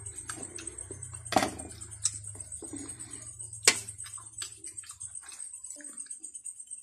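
Close-up chewing of crispy roast pork (lechon) with small crunches and mouth clicks, mixed with sharp clinks of a spoon and fork against the plate; the loudest clink comes about three and a half seconds in.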